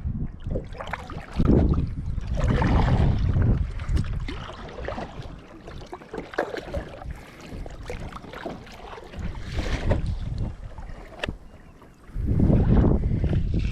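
Kayak paddle strokes splashing in the water, with irregular gusts of wind buffeting the microphone and a few sharp clicks.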